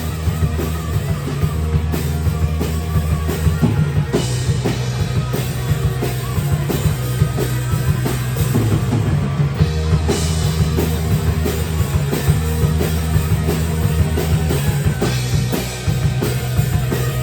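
Live rock band playing an instrumental passage without vocals, with the drum kit and bass to the fore.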